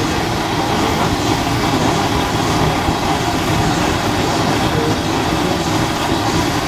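Motorcycle being ridden: a steady, loud rumble of engine and road noise.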